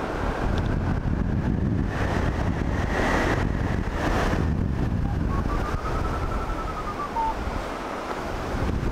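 Wind rushing over the camera microphone in fast paraglider flight at around 50–58 km/h. A flight variometer sounds faintly through it: a thin steady tone in the first few seconds, then a short run of quick beeps that rise and fall in pitch about two thirds of the way through.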